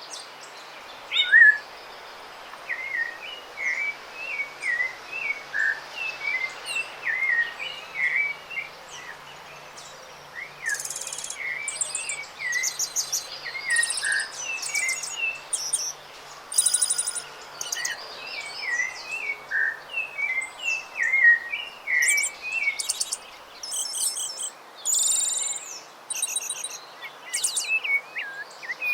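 Rufous-bellied thrush (sabiá-laranjeira) singing, with a stream of short chirping notes throughout. Louder, higher trilled phrases join in from about a third of the way in until near the end.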